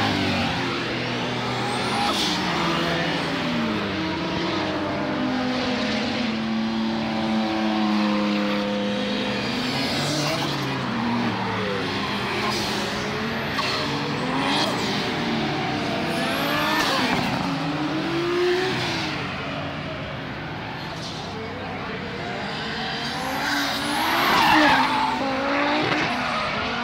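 Modified race cars passing at speed one after another, their engines revving up and down through the gears. Near the end a car drifts past with loud tyre squeal.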